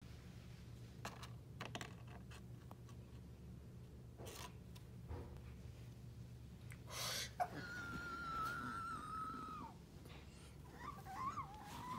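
Soft handling noises of plush toys on carpet, then a high-pitched vocal whine held steady for about two seconds, and a wavering, whimpering high-pitched voice near the end.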